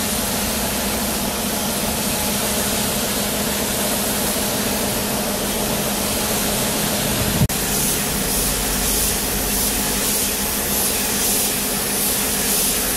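Compressed-air paint spray gun hissing steadily as it lays on red paint, over a steady low hum. The hiss breaks off sharply about halfway through and then carries on somewhat brighter.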